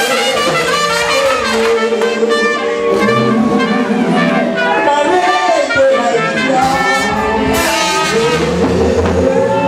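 Live church praise music: a trumpet plays the melody over the band, with a woman singing through a microphone.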